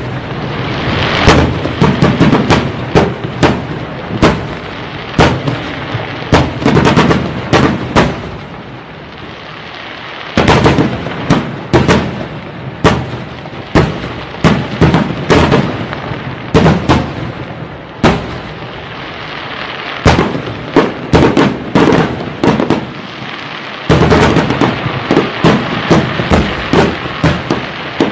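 Fireworks display: aerial shells bursting one after another, sharp bangs roughly every second over dense crackling. There is a short lull about nine seconds in and a thicker barrage near the end.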